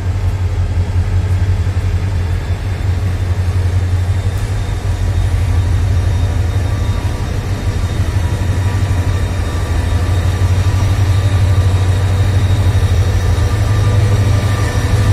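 Diesel-electric locomotive engine running with a steady low drone as the locomotive moves slowly along the platform, growing louder near the end as it draws level.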